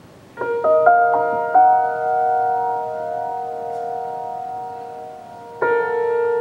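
Grand piano: after a short quiet, several notes are played one after another in quick succession, mostly climbing, and left ringing together as they slowly fade. Near the end a new chord is struck.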